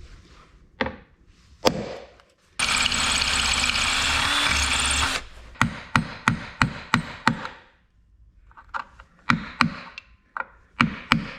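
A power drill runs steadily for about two and a half seconds. Then a hammer strikes a chisel in quick runs of sharp blows, about four to five a second, chipping a galled, broken-off bolt out of a plastic battery tray.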